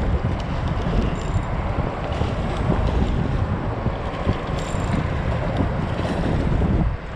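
Wind buffeting the microphone with a steady low rumble, over water washing against shoreline rocks.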